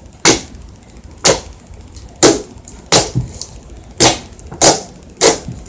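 Fluffy slime made with shaving cream being pressed and squeezed by hand, letting out seven sharp popping squelches, each about a second or less apart.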